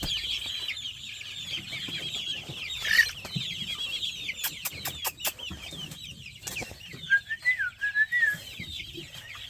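Poultry yard sounds: a flock of chickens clucking over a dense chorus of high chirping from many birds, with a few sharp clicks about five seconds in.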